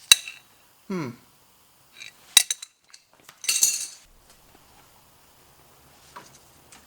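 Metal hand tools clinking: a few sharp metal clinks and a brief rattle, from a wrench being handled while trying to loosen a soft aluminium A/C line fitting that it keeps rounding off.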